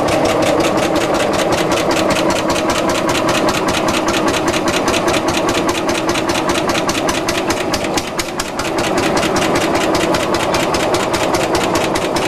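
Old engine idling with a fast, even pulsing beat; the sound dips briefly about eight seconds in.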